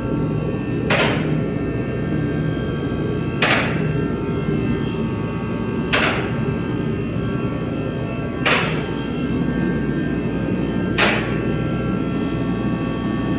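A steady hum with a sharp knock repeating about every two and a half seconds, five times.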